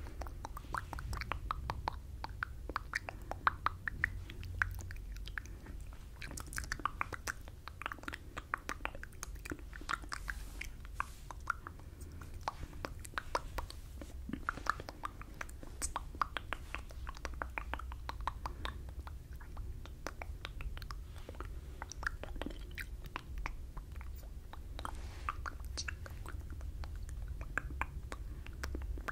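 Close-miked ASMR mouth sounds: a continuous run of small wet lip and tongue clicks and smacks with inaudible whispering, in the muffled fishbowl style, over a steady low hum.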